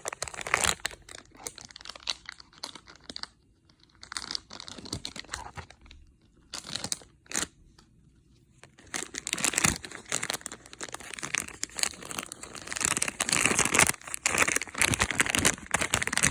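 Plastic toy packaging being crinkled and torn open by hand, in irregular spells, with a quieter patchy stretch in the middle and the longest burst of tearing near the end.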